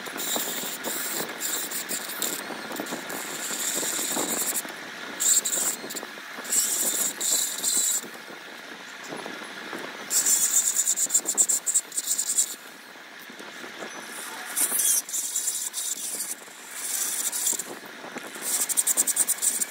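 Hand scraping or filing on the aluminium cylinder of a Yamaha RX135 two-stroke engine while its port is worked. It comes in repeated short spells, each a second or two long, with the loudest run about ten seconds in.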